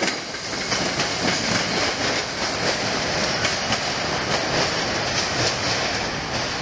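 SEPTA Silverliner IV electric multiple-unit commuter train running over the rails as it heads into a tunnel portal: a steady rush of wheel-on-rail noise.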